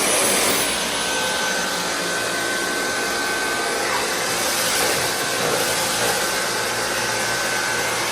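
Dyson V8 Plus cordless stick vacuum switched on in max mode: its motor starts suddenly and runs steadily, a rush of air with a high, even whine.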